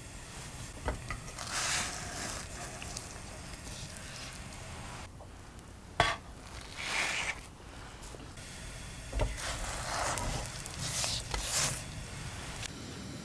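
Kitchen food-handling sounds: three sharp light knocks, each followed by a second or so of hissy rustling.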